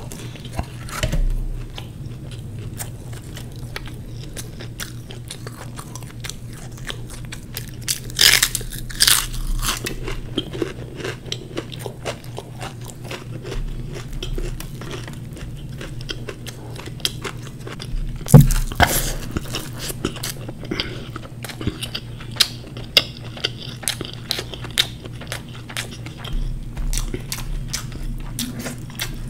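Close-miked eating: biting, chewing and crunching through fried samosa and dhokla, with many small wet mouth clicks. A few louder crackles come about eight and eighteen seconds in, over a steady low hum.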